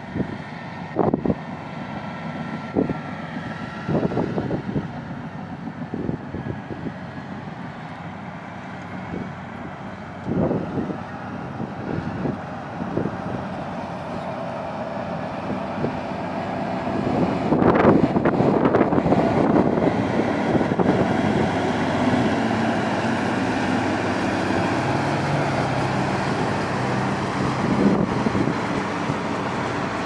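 Heavy diesel earthmoving machinery running, with intermittent short thumps in the first half. About halfway through, a CAT 16H motor grader's diesel engine passes close and is loudest, then an engine drone carries on.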